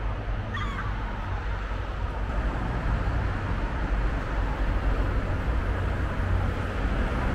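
Steady city traffic noise, a low rumble throughout, with one short cat meow less than a second in.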